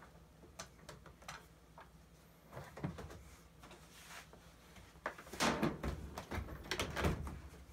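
Handling clatter of the speaker mounting assembly being moved and flipped over: scattered light clicks, then a louder run of knocks and scrapes from about five seconds in.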